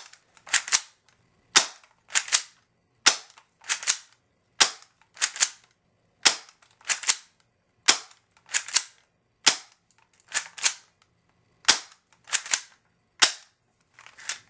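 Spring airsoft pistol (Mossy Oak Series 1900) being cocked and fired over and over in quick succession, about one shot a second. Each shot is a sharp double snap.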